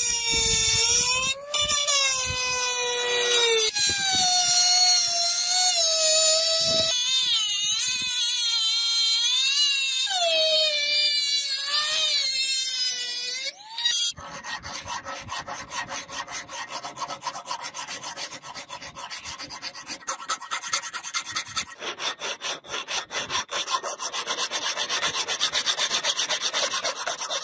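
Handheld rotary tool with a small abrasive bit grinding on a steel blade, its whine rising and falling in pitch as it is pressed on and eased off. About halfway through it gives way to a hand file rasping across the steel in rapid back-and-forth strokes.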